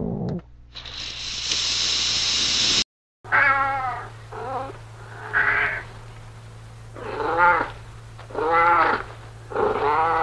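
A steady hiss of noise for the first few seconds, then, after a short break, a domestic cat meowing six times in a row with short pauses between the calls.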